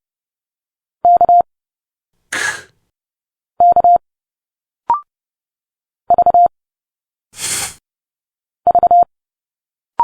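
Morse code at 30 words per minute: quick groups of beeps on one steady tone, each letter sent twice with its spoken sound between, a short hissed consonant such as an "fff" for F. A short higher blip marks off each letter, about halfway through and at the end.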